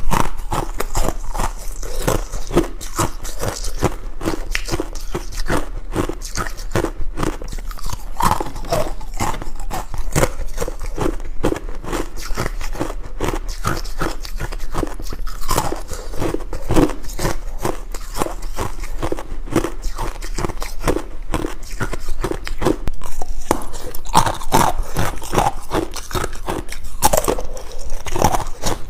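Ice being bitten and chewed close to the microphone: a dense, continuous run of sharp crunches and crackles.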